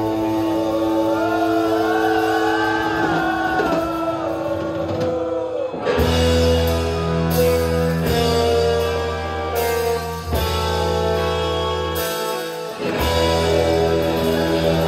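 Live rock band of electric guitars, bass, keyboard and drums playing. For the first few seconds a melody line bends up and down over held chords. About six seconds in, the full band comes in with heavy bass and drum hits, and the bass drops out for a moment near the end.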